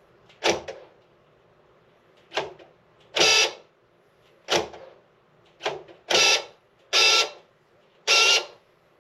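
A vehicle's door lock being worked over and over: sharp clicks alternate with short buzzing bursts of about half a second from the power-lock actuator. The lock is faulty and doesn't want to lock or unlock properly.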